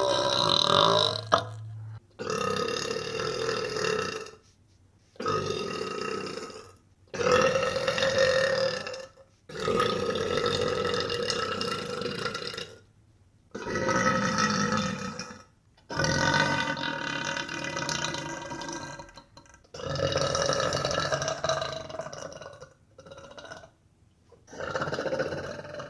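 A woman burping over and over: a run of about ten long, drawn-out burps, each lasting one to three seconds, with short pauses between them.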